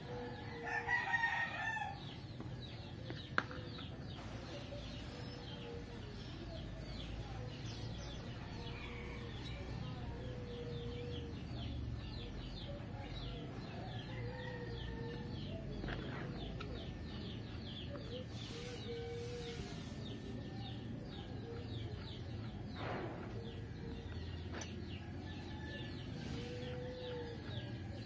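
A rooster crows once about a second in. Behind it, birds chirp in quick short notes and fowl give short low calls every couple of seconds.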